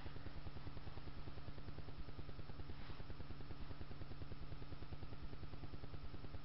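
Steady low hum with a fast, even pulsing buzz, the background noise of the room or recording, with a brief faint rustle about three seconds in.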